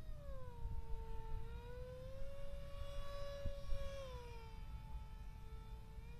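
Motor and propeller of a radio-controlled paramotor flying overhead: a steady whine that drops in pitch, climbs again and holds, then drops once more about four seconds in and begins to rise near the end.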